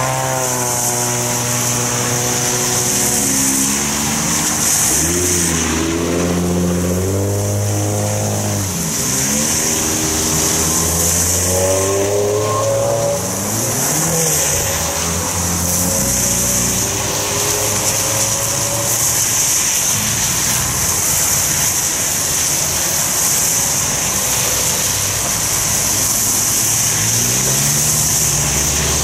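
Several modified cars driving through a wet intersection one after another, their engines rising and falling in pitch as each pulls away and revs. A steady hiss of tyres on the wet road and rain runs underneath.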